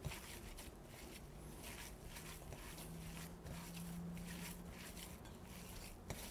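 Hands kneading raw ground beef with breadcrumbs and spices in a glass bowl: faint, irregular soft squishing.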